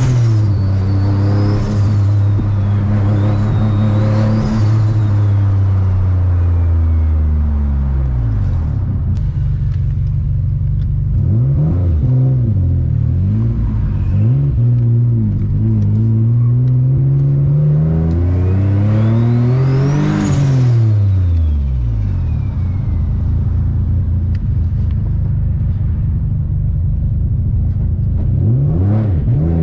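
Single-turbo VQ35DE V6 of a G35 coupe heard from inside the cabin, pulling and easing off several times, its revs climbing and dropping, with the biggest climb peaking about two-thirds of the way through before falling away. A faint high turbo whistle rises and falls along with the revs.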